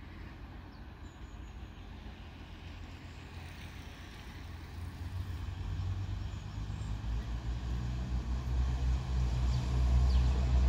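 Regional multiple-unit train approaching along the platform, its low rumble growing steadily louder from about halfway through as it draws near.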